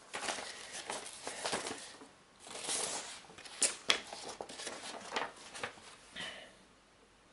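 Sheets of paper rustling and crinkling as they are handled and leafed through: a run of short rustles, the sharpest a little under four seconds in, dying away near the end.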